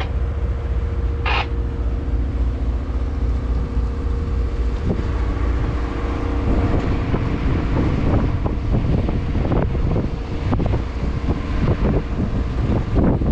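Steady low drone and hum of a motor vessel's engine while the boat is underway. Irregular wind buffeting on the microphone joins in about a third of the way through.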